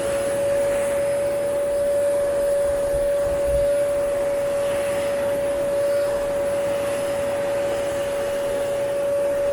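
Vacuum cleaner running steadily with an even, unchanging whine as it picks dog hair off sofa upholstery.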